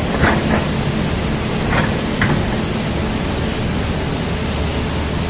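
Old hydraulic excavator's diesel engine running steadily, with a few short metallic clanks near the start and about two seconds in.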